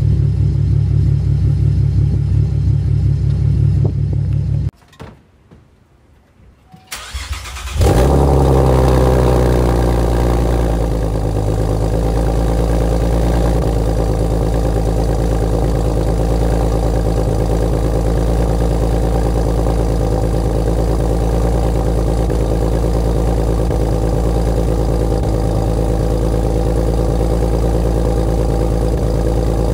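2010 Chevrolet Camaro 3.6-litre V6 with long-tube headers, high-flow cats and an aftermarket axle-back exhaust, heard at the quad tips: idling, then quiet for about three seconds. It starts again about eight seconds in with a loud flare of revs that settles over a few seconds into a steady idle.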